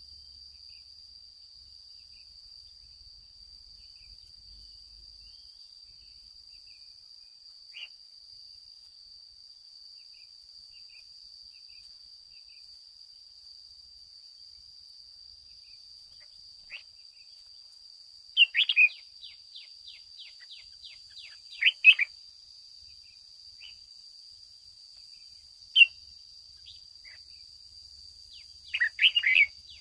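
Red-whiskered bulbul singing in short, loud phrases, a few scattered ones in the second half and one rapid run of quick falling notes, over a steady high-pitched insect drone.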